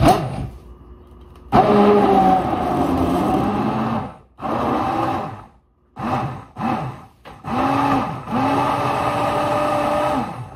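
Electric stick (immersion) hand blender running in about six bursts in a plastic beaker of oats, milk, egg and banana. Each burst spins up and winds down.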